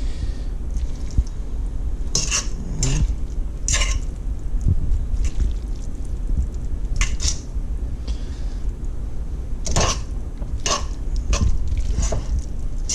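A utensil scraping and clanking against a wok as sauced spaghetti and vegetables are tossed and stirred, in irregular strokes every second or so, over a steady low hum.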